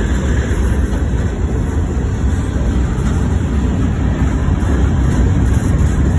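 Freight train's covered hopper cars rolling past, a steady low rumble of steel wheels on rail.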